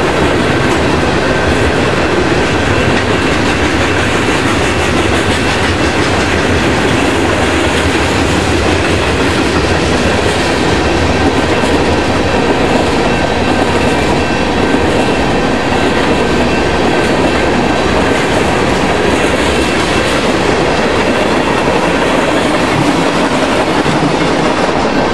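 Freight cars of a long mixed train, covered hoppers and tank cars, rolling past at speed over a grade crossing: steel wheels clattering over the rail joints in a clickety-clack, over a continuous rumble.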